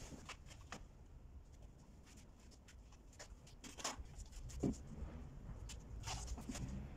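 Light knocks and scrapes of a thin wooden door skin being handled and laid onto a glued hollow-core door frame, with two sharper knocks around the middle.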